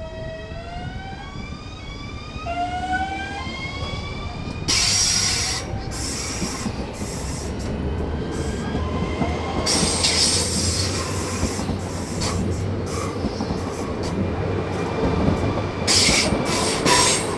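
Electric train pulling away: its traction motors whine in a series of rising, stepped tones for the first four seconds. The noise of wheels running on rails then takes over, with louder rattling bursts about five, ten and sixteen seconds in.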